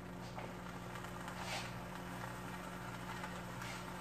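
A low steady hum, with a soft brief rustle about one and a half seconds in.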